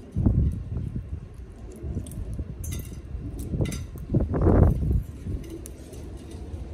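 Amazon parrot feeding from a coconut-shell bowl: light clicks and clinks of beak and food against the shell. Two low rumbling bumps, one just after the start and a longer one around four to five seconds in, are the loudest sounds.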